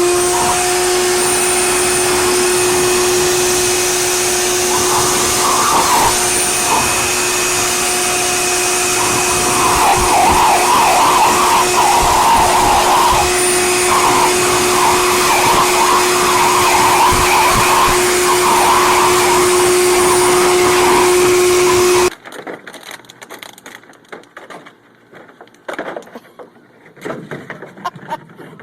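Electric blower motor running at a steady, loud hum with a rushing of air, irregular rushing patches over it from about five seconds in; it cuts off suddenly about 22 seconds in, leaving fainter scattered noises.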